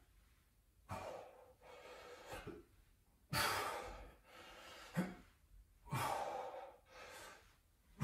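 A person breathing hard while exercising: a few loud breaths every couple of seconds, the strongest about three and a half seconds in. A short knock about five seconds in.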